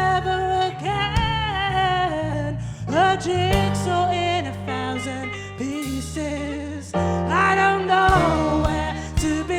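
Live band music with piano, bass and drums under a sung melody line that slides between notes, with drum hits throughout.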